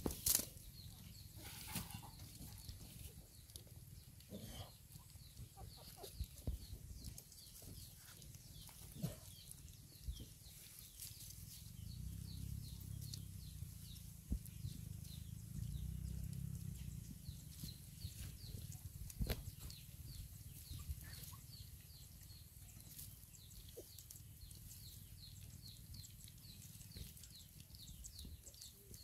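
Young puppies eating from a shared bowl: faint lapping and smacking with scattered small clicks, over faint, steadily repeating high chirps.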